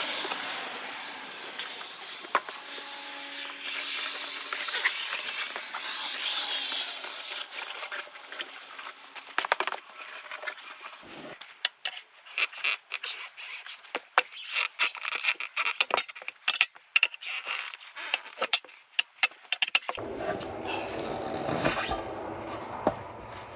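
Hissing and scraping, then a run of sharp metal clinks and knocks in quick succession from about halfway through, as steel tools work on a large tire and its rim.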